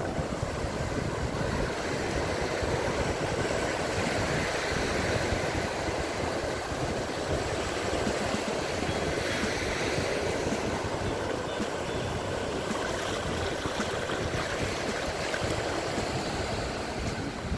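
Steady rushing of sea water and wind out on the water, with wind buffeting the microphone.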